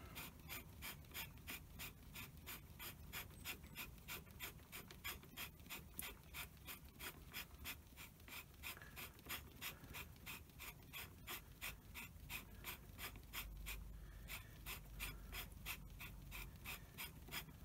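Faint, rhythmic scratching of fingers turning a knurled micrometer adjuster screw on a lathe apron, winding its very fine thread in, about three or four short strokes a second.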